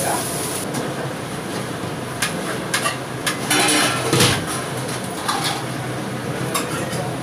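Stainless-steel idli mould plates clattering and knocking against the steamer and a steel serving plate as they are lifted out and handled with a cloth: a scattered series of metal knocks, loudest about four seconds in.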